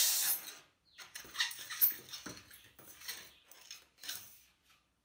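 Latex modelling balloon, half-inflated by mouth: a loud rush of breath into the balloon ends within the first second. Then the rubber squeaks in a run of short, irregular squeaks as the neck is knotted and the balloon is stretched and squeezed in the hands.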